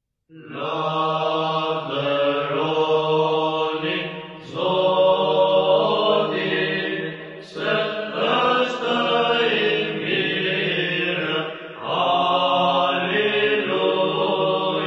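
Orthodox church chant: voices singing in long phrases over a steady, low held drone note.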